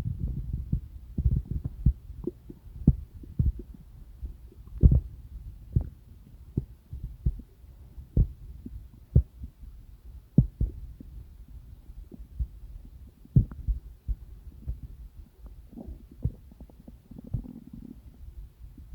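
Sounds from inside a person's belly, picked up close: soft low thumps about once a second, somewhat irregular, over a faint low hum, with a brief low gurgle near the end.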